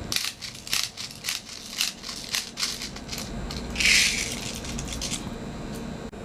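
Sharp clicks and light rattles, roughly two a second, from handling the Shoei G43 air blowback BB rifle, with a short hiss about four seconds in.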